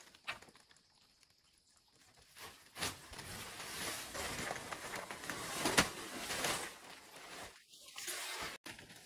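Rustling and scraping handling noise with a few sharp knocks about three seconds apart.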